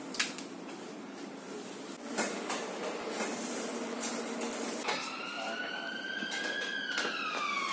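Police car siren wailing, coming in about five seconds in: its pitch rises slowly, then falls. Before it there is only a faint steady background with a few light knocks.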